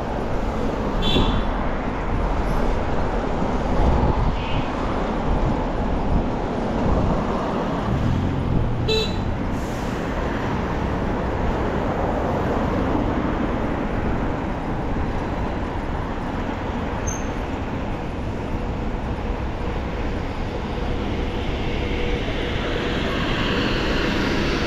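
Steady city street traffic noise, with two brief high-pitched toots about a second in and around nine seconds.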